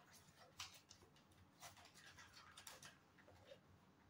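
Near silence with a few faint, scattered ticks and rustles of hands handling gift packaging and a small box.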